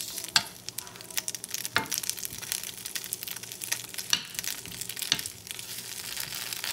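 Boiled pelmeni sizzling and crackling as they fry in a nonstick pan, with about four sharp clicks as a metal spoon knocks against the pan turning the dumplings.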